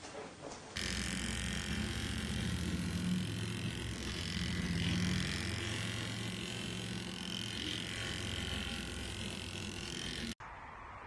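Persian cat purring close to the microphone: a steady low rumble with a fast pulse, starting about a second in and cutting off abruptly near the end.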